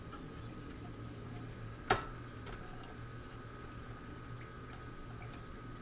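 A single sharp click about two seconds in, as a part of the Inland DB-100 diamond band saw is snapped and locked into place by hand, over a faint steady hum.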